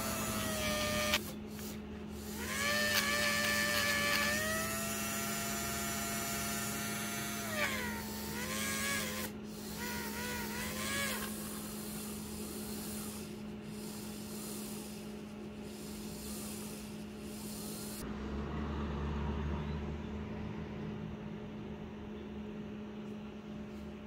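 Small electric motor of a slot-car tire truer spinning the front wheels, a whine that steps up in pitch about two seconds in, sags and wavers near the middle and stops about halfway through. A steady low hum runs underneath.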